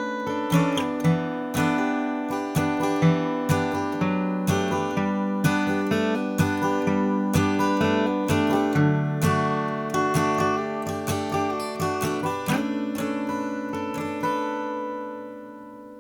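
Martin Custom Shop Style 18 all-mahogany acoustic guitar played capoed at the seventh fret, with notes picked in a steady flowing pattern, about two a second. About twelve and a half seconds in a last chord is struck and left to ring, fading out near the end.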